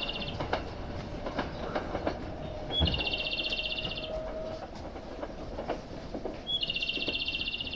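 A railway station's electronic guidance chirp: a short, high, identical trill that repeats about every four seconds, sounding about three seconds in and again near the end. Underneath is a low rumble with scattered clicks.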